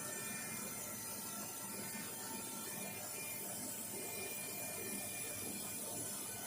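Steady machine noise with a few faint steady tones, from a fiber laser welding machine running.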